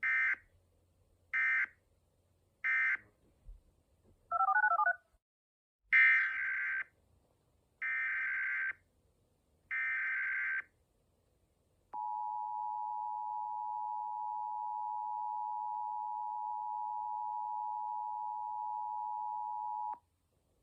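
Emergency Alert System digital tones. Three short data bursts end the previous alert, and a brief warbling beep follows. Three longer data bursts then open a new alert, followed by the steady two-tone EAS attention signal, held about eight seconds before it cuts off.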